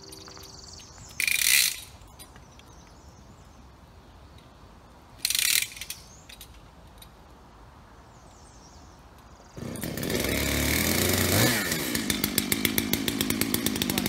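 A Dolmar 7900 chainsaw starts up about two-thirds of the way in and keeps running, climbing in pitch about two seconds later and then running on with a fast pulsing. Earlier come two short, loud bursts of noise a few seconds apart.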